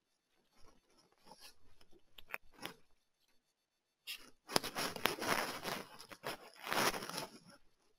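Rustling, scraping noise with scattered light clicks, louder from about four seconds in and fading near the end.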